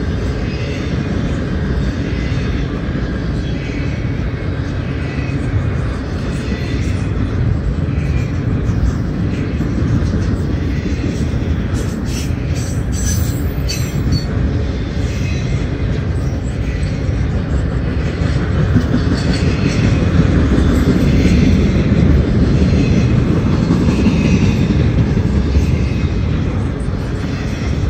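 CSX double-stack intermodal freight train rolling past: steady rumble of well-car wheels on the rails. A cluster of sharp high clicks comes about halfway through, and the rumble grows louder over the last third.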